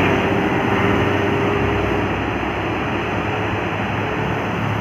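Loud engine and tyre noise from heavy road traffic passing close by, with a faint steady hum that fades about two seconds in.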